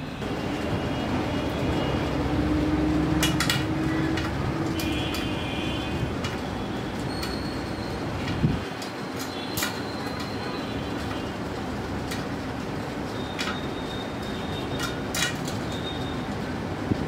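Light metallic clicks and short ringing pings from steel spokes being worked with a spoke key on a hub-motor bicycle wheel, over a steady traffic-like background rumble. A low hum swells in the first few seconds, and a sharper knock comes about halfway through.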